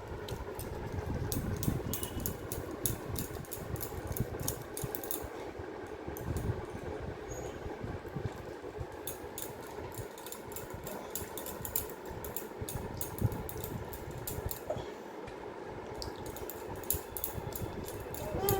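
A room fan running with a steady hum, with soft clicking and rubbing noises from hands massaging oil into a baby's skin.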